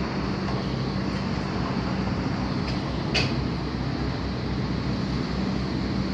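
Heavy construction machinery on a building site running with a steady, low engine drone, with one short click about three seconds in.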